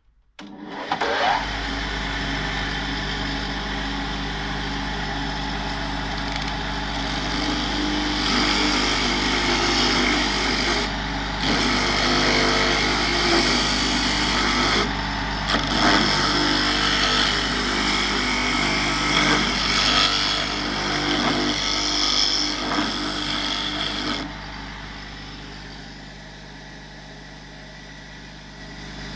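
Homemade drum sander, a turned wooden drum with sandpaper stapled to it, starting up about a second in and running with a steady motor hum. From several seconds in until near the end wood is worked against it, adding a louder sanding noise, and then it runs on lightly loaded.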